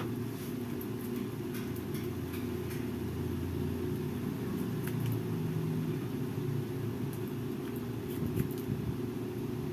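Steady low hum of a window air conditioner running, with faint scattered snips of scissors cutting hair.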